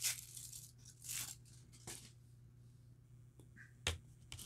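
Faint rustling and tearing of a chocolate bar's wrapper being handled, in a few short bursts, with a sharp click about four seconds in, over a low steady hum.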